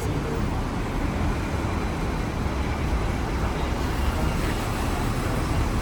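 Hong Kong double-decker tram running along its tracks, heard from on board: a steady low rumble with no distinct knocks or tones.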